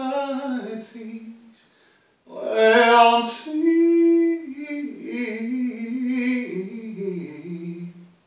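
A man's solo voice chanting in a sung, drawn-out way, in two phrases with a short pause between them about two seconds in. Early in the second phrase it holds one note for about a second.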